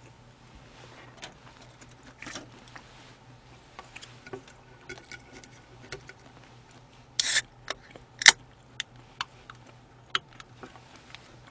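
Aluminium soda can being handled and opened: a short loud fizzing crack about seven seconds in and a sharp click a second later, among light clicks and taps of the can and chopsticks.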